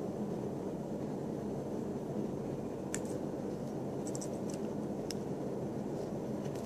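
Steady background room noise with a few faint, sharp metal clicks and ticks from a needle and fingers working at the coil of a rebuildable vape atomizer, one about three seconds in and a short cluster a second later.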